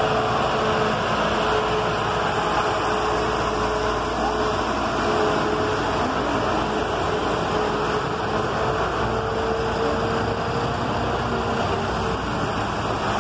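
City buses running through a flooded street: a steady engine drone with a faint whine, mixed with the rush of water pushed aside by the wheels.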